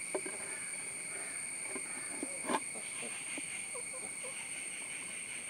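Terracotta roof tiles knocking and scraping lightly against each other as hands adjust them into a square box: a few soft clicks, the loudest about two and a half seconds in, over a steady high-pitched whine.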